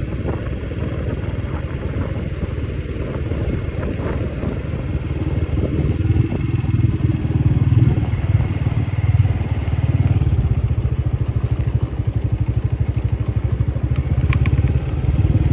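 Motorcycle engine running steadily under way, with a few light clicks near the end.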